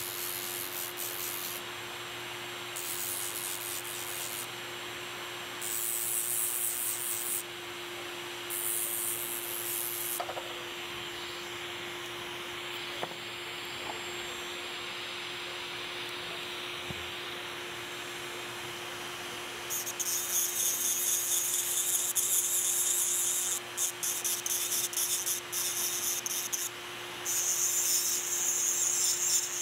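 Dental lab handpiece running steadily with a finishing wheel, its motor giving a constant whine while the wheel grinds a metal alloy coping in spells of scratchy high hiss that start and stop as it is pressed on and lifted. The handpiece is set at a low speed meant for finishing zirconia.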